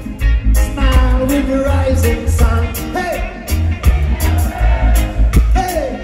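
Live reggae band performing: a lead vocal sings over a deep, pulsing bass line and steady drums.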